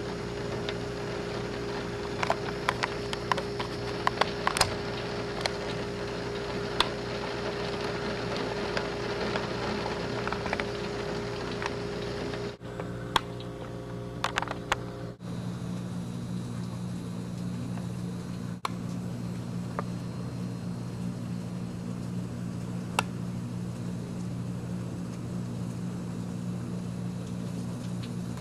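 Steady hum of a vehicle running, heard from inside the cabin, with scattered sharp ticks of rain striking the glass. About halfway through the hum briefly drops out and comes back at a different pitch, with fewer ticks.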